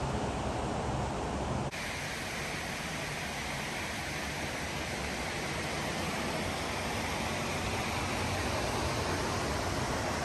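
Steady rush of falling water from a waterfall on Multnomah Creek. About two seconds in it cuts abruptly to a brighter, hissier rush with less rumble.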